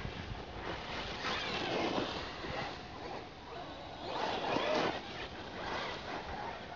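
Robitronic Mantis RC truggy with a Neu 1512/2Y brushless motor driving on tarmac: a high motor whine with tyre noise that swells and fades twice, about a second in and again around four seconds in, as the car passes.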